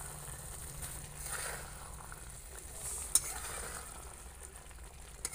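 Metal spatula stirring Maggi noodles in masala gravy in a steel kadhai, the pan sizzling as it cooks. One sharp clink of the spatula against the pan about three seconds in.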